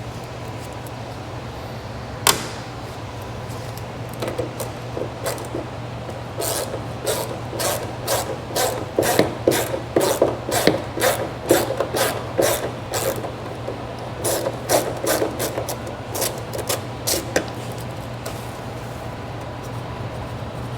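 Hand tools working on a Humvee's body fasteners: one sharp knock, then a long run of quick rhythmic strokes, two or three a second, like a hand tool being worked back and forth.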